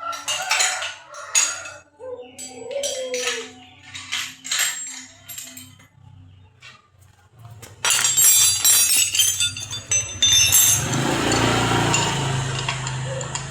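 Metal parts of a scroll saw clinking and knocking as it is taken apart, in short separate clicks. About eight seconds in, a louder steady noisy sound starts suddenly and keeps going.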